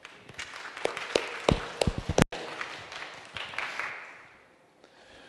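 Congregation applauding, a crackle of many hand claps that dies away about four seconds in.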